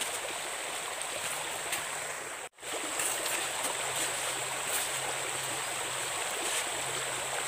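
Shallow stream running steadily over rocks, a constant watery rush that cuts out for an instant about two and a half seconds in.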